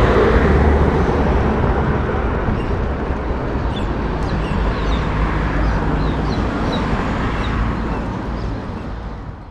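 Outdoor ambience: a steady rumbling noise with birds chirping briefly several times in the middle, fading out near the end.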